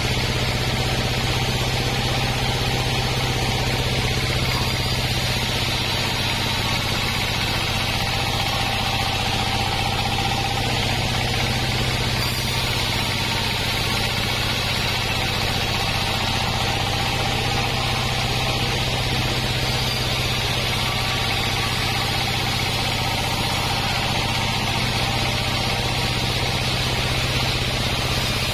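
Bandsaw mill running steadily: its drive and spinning band blade make a constant low drone that does not change.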